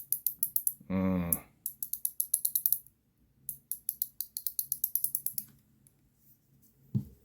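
A ratcheting ring fidget (ACEdc Mechanical Ring) being turned. It gives three quick runs of sharp ratchet clicks at about ten clicks a second, with a short hum from a person about a second in.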